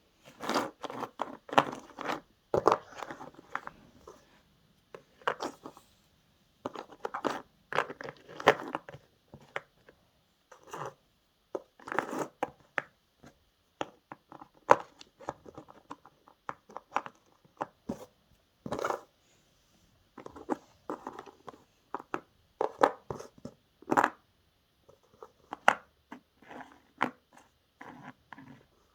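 Toys being handled: irregular clusters of short plastic clicks, knocks and scrapes, with brief pauses between them, over a faint steady hiss.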